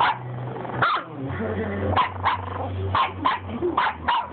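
Boston terrier puppy giving a series of short, sharp barks and yips, about eight in quick succession, in the puppy 'talking' manner.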